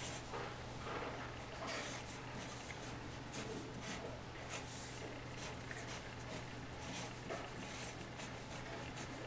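Black marker pen writing on a paper sheet taped to a wall: a run of short, faint strokes as letters and lines are drawn.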